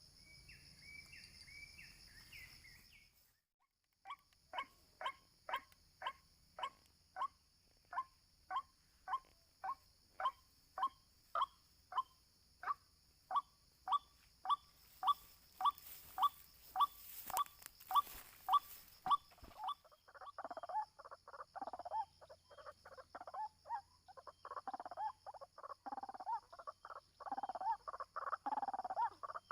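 White-breasted waterhen calling: after a few short chirps comes a long series of single 'kwak' notes at about two a second, growing louder, which about twenty seconds in breaks into a rapid, jumbled chorus of calls. A steady high insect buzz runs behind.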